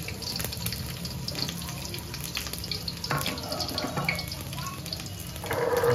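Sliced vegetables sizzling in hot oil in a steel wok over a gas burner, a steady hiss with fine crackling pops. It grows louder about five and a half seconds in.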